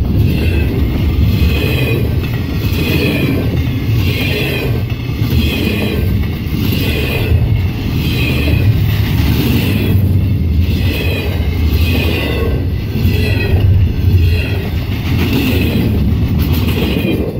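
Double-stack container freight train passing close by at speed: a loud, steady rumble of wheels on rail that swells and fades about once a second as each car's wheel sets go by.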